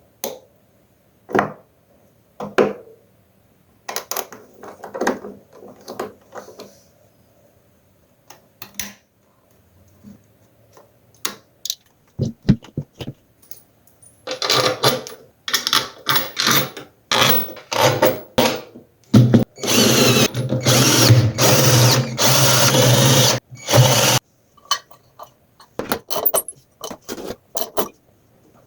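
Power drill-driver running in several short bursts, then in one steady run of about five seconds. Before the drill, knocks and clatter of parts being handled.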